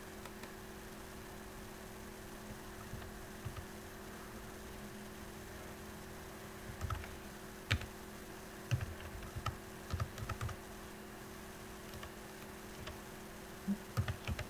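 Keys of a computer keyboard struck in short irregular runs of a few keystrokes at a time, over a steady low electrical hum.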